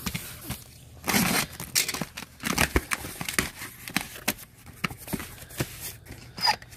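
Utility knife slicing the packing tape on a cardboard carton, with a loud tearing rasp about a second in. Then the cardboard flaps are pulled open and small cardboard packages inside are rustled and knocked together.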